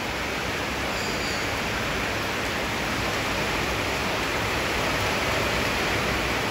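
Heavy rain pouring down, a steady even hiss.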